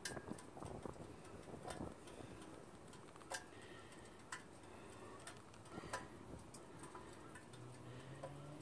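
Faint, irregular sharp ticks and clicks from the hot V-twin engine of a Cub Cadet zero-turn mower, which is still cooking off leaked oil. A low steady hum joins near the end.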